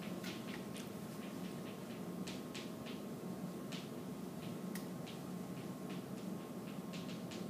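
Chalk writing on a chalkboard: short, irregular taps and scratches, several a second, over a steady low hum.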